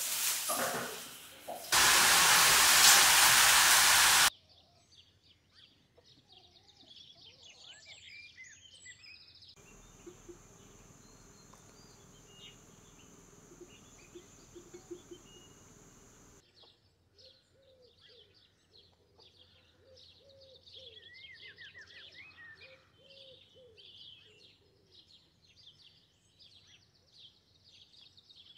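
Faint birdsong, many birds chirping and whistling, with a steady high-pitched drone underneath for several seconds in the middle. It is preceded by a loud, even hissing noise that lasts about two and a half seconds and stops abruptly.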